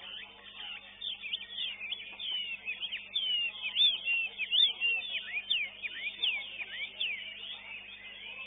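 Caged competition songbird singing a fast, continuous run of short sweeping whistled notes, loudest in the middle of the stretch.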